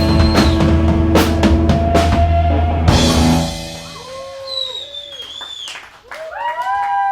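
A live rock band ending a song: drum kit hits over a held chord with bass, which dies away about halfway through. Then a whistle and a few short whoops.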